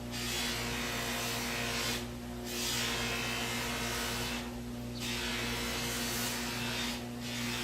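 A cloth rubbing metal polish onto the back of an antique pocket watch case to buff out fine scratches, in long even strokes of about two seconds with short pauses between them. A steady low hum runs underneath.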